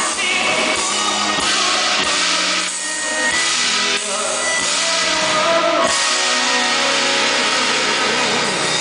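Live band playing at a soundcheck, with drum kit and guitar, recorded on a camera's built-in microphone so that the bass is thin.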